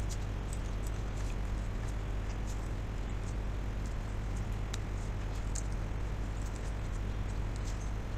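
Computer keyboard typing: light, irregular key clicks over a steady low hum.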